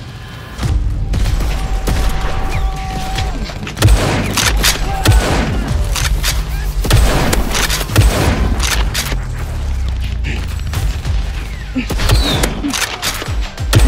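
Foam-dart blaster shots and impact thuds, many in quick succession and some in rapid runs, over background music with a steady low bass.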